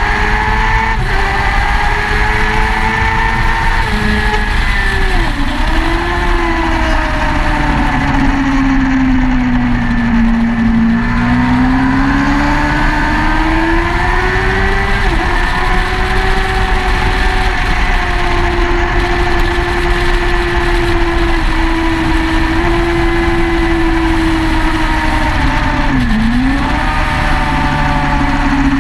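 Motorcycle engine running hard at speed, heard onboard with heavy wind rush on the microphone. The engine note sags and climbs with the throttle and drops sharply about five seconds in and again near the end.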